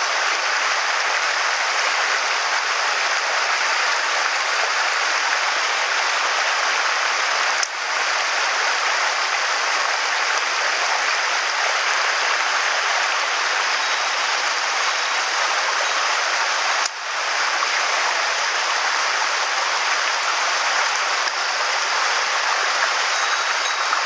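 Mountain stream rushing over rocks and shallow riffles, a steady hiss that briefly dips twice, about eight and seventeen seconds in.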